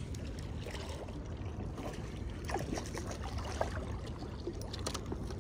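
Steady low wash of water and wind noise, with a few faint short squeaks and ticks in the middle.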